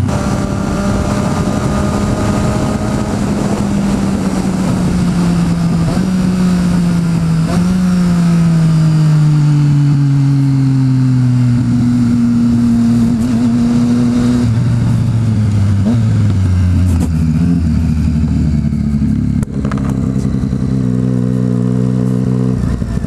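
Motorcycle engine heard from the rider's seat over wind rush. Its pitch falls gradually, with a few small steps, as the bike slows down. For the last several seconds it runs low and steady near idle as it rolls slowly in.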